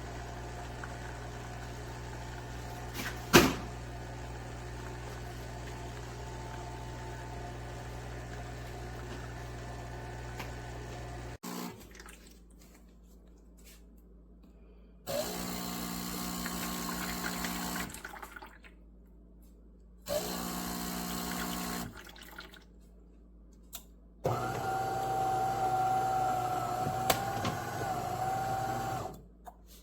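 De'Longhi Magnifica Start espresso machine running: a steady hum with a sharp click about three seconds in, then, after it cuts off suddenly, two short spells of pump hum and a louder pump whine with water flowing near the end.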